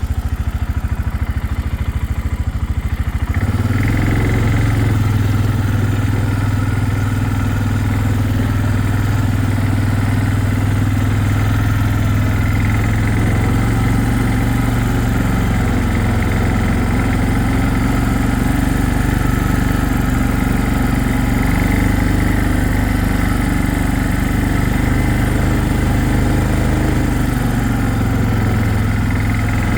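Four-wheeler (ATV) engine running, quieter for the first few seconds and then, about three and a half seconds in, picking up to a louder, steady drone as the machine drives on.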